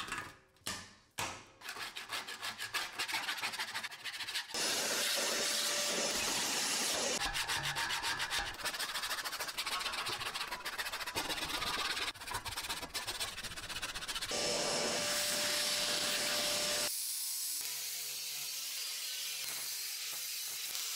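A few sharp knocks of the steel cabinet being handled, then a stiff hand brush scrubbing rust and old paint from the inside of the steel box in fast, rasping strokes. Near the end this gives way to a quieter, steady grinding with a low hum from an angle grinder with an abrasive disc working a rusty steel strip.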